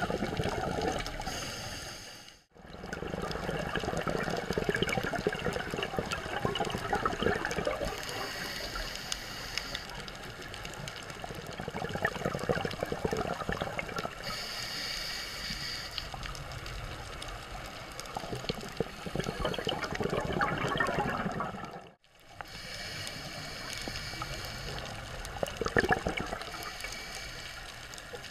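Underwater gurgling and bubbling from a scuba diver's exhaled bubbles, with a dense crackle, swelling and easing in waves. The sound drops out briefly twice, about two and a half seconds in and again about twenty-two seconds in.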